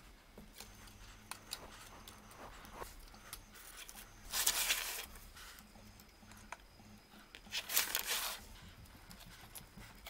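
Adhesive tape strips being peeled off a brass model locomotive with metal tweezers: two short tearing rasps a few seconds apart, with faint small ticks in between.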